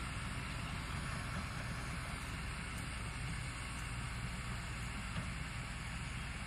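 Heavy diesel engine idling steadily, a constant low hum with no revving.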